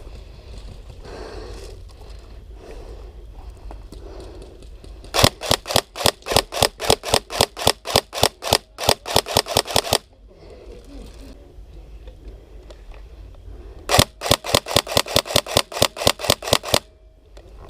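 Airsoft gun firing two long strings of rapid shots, about five sharp cracks a second: the first lasts about five seconds, the second, starting about four seconds later, lasts about three seconds.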